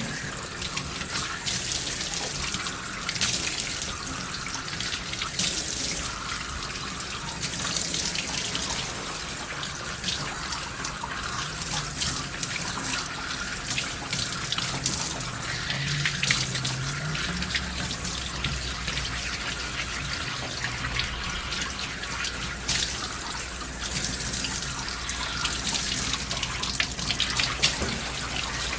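Water running steadily from a tap or bath sprayer, a continuous splashing hiss.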